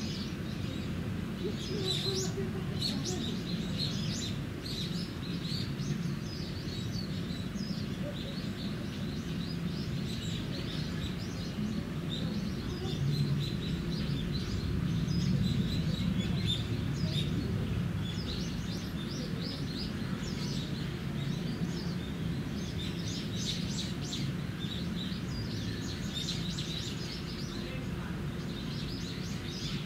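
Small birds chirping in quick, repeated bursts, busiest near the start and again near the end, over a steady low background rumble of outdoor ambience.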